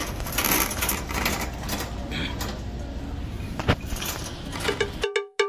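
Empty wire shopping cart rolling over a store floor, its metal basket rattling and clinking over the rumble of the wheels. Near the end this cuts off abruptly and a fast run of ringing cowbell-like strikes begins.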